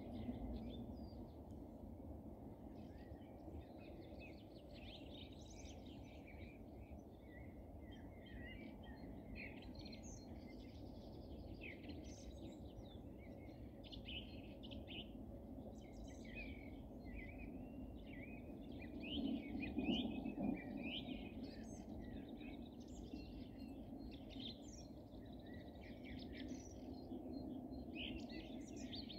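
Small songbirds chirping and singing in a busy, overlapping chorus over a steady low background rumble, which swells briefly about twenty seconds in.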